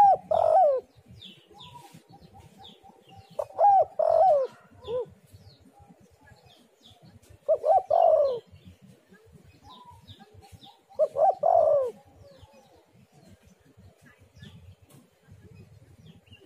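Spotted dove cooing: a short phrase of several notes, repeated four times about every four seconds, then stopping for the last few seconds. Small birds chirp faintly behind.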